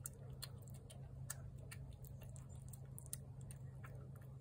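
A cat chewing and lapping wet food from a plate: small irregular clicks and smacks, several a second, over a steady low hum.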